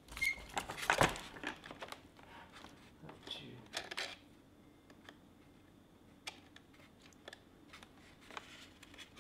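Hands fitting a small 3D-printed plastic steering part into the foam nose of a model airplane: scattered clicks, taps and rustling of plastic and foam, busiest in the first few seconds, then only occasional ticks.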